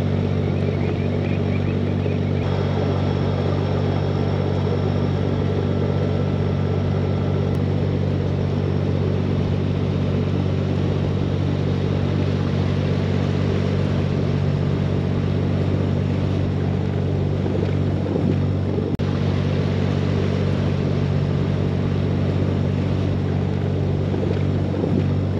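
Narrowboat engine running at a steady cruising speed, an even low drone with a steady rushing noise of wind and water over it.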